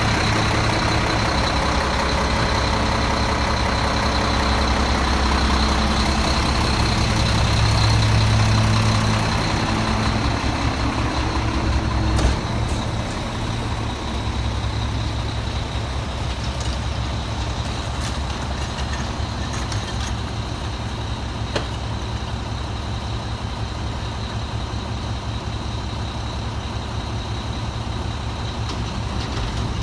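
Mack MR garbage truck's diesel engine idling steadily, with a faint steady high whine over it. The engine hum is louder for the first dozen seconds; a single knock comes about twelve seconds in, and after it the engine runs quieter.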